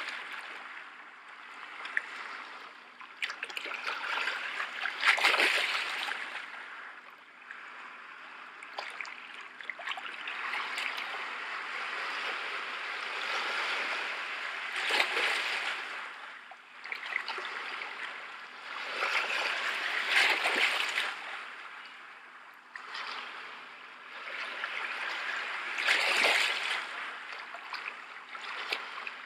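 Ocean surf washing ashore as a steady rush of water that swells and ebbs about every five or six seconds.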